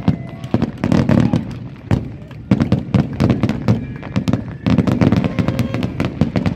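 Aerial fireworks fired in a rapid barrage: many overlapping booms and crackling bursts, several a second. The fire eases briefly about two seconds in and again past four seconds before resuming.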